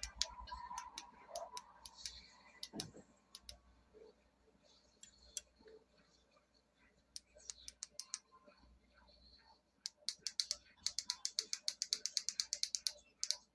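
Scattered clicks and light knocks of small objects being handled, then near the end a fast run of sharp clicks, about ten a second, like a ratchet or clamp being worked.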